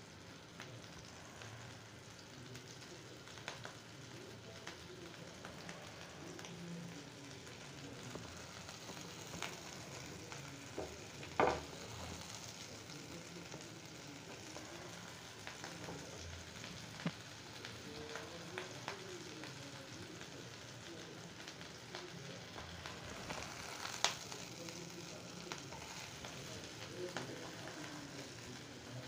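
Potato tikkis shallow-frying in oil in a non-stick pan: steady sizzling with fine spitting crackles. Two sharp knocks stand out, the loudest about eleven seconds in and another at about twenty-four seconds.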